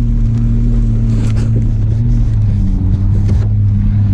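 Holden VS Commodore's engine running hard at steady revs on dirt, a loud, even drone whose pitch dips slightly a little past halfway.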